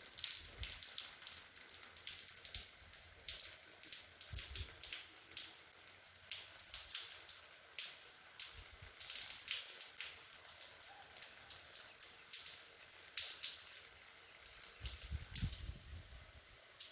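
Fine, light rain falling, with many irregular drops and drips ticking on nearby surfaces over a soft steady hiss.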